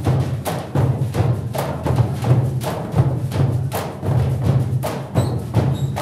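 Scrap percussion: a group beating plastic buckets, drums and metal cans with sticks in a fast, dense rhythm. A few short high tones sound near the end.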